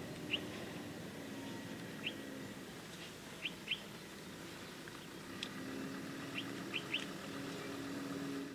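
Small birds chirping in short, high calls, a few at a time in pairs and threes, over a steady low hum.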